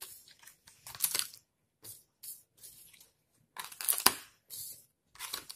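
Laminated paper number cards being picked up and pressed one after another onto the Velcro strips of a file folder: a series of short, scratchy, crackling sounds, the loudest about four seconds in.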